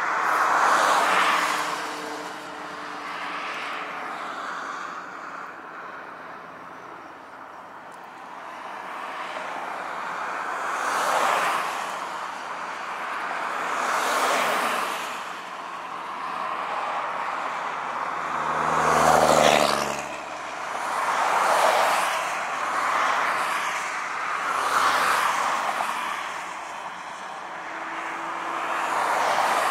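Outdoor traffic noise: vehicles passing one after another, the sound swelling and fading every few seconds. One passes close at about nineteen seconds, its engine note dropping as it goes by.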